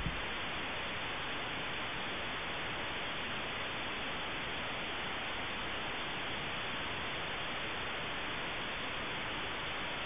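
Steady, even static hiss on the audio track of an analog FPV goggle recording: video-receiver noise.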